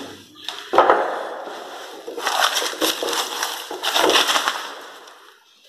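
Loud crunching and scraping of rubble and debris close to the microphone, starting about a second in and fading away near the end.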